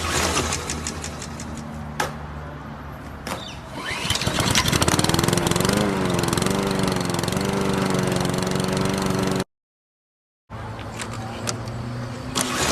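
An engine being started: a few sharp clicks, then about three and a half seconds in it catches and runs with a slightly wavering pitch. The sound cuts out abruptly for about a second, and then an engine is heard running again.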